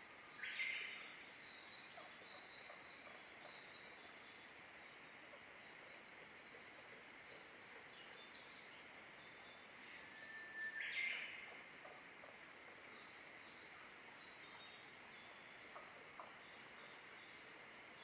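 Wild birds calling: two louder, chirpy calls about ten seconds apart, with faint distant birdsong between them over a quiet, steady hiss. Two faint ticks near the end.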